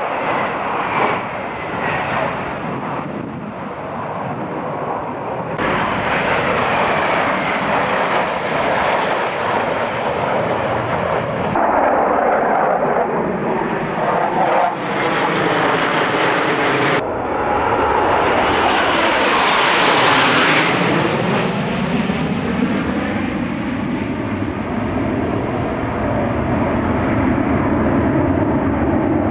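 Jet engines of a formation of F-16 Fighting Falcons flying past, loud and continuous. The sound swells to its loudest and highest about twenty seconds in as the jets pass closest, then eases off. It changes abruptly at a few points where the recording is cut.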